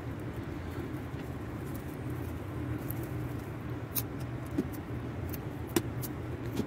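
A few small crackles and clicks of thin clear plastic sleeves being handled as paper banknotes are slipped into them, over a steady low background hum.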